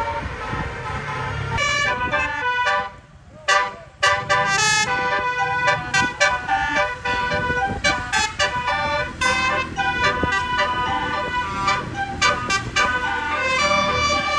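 Indonesian bus 'telolet basuri' musical air horn playing a tune in short stepped notes, over a bus engine running underneath. The horn breaks off briefly about three seconds in, then the tune resumes.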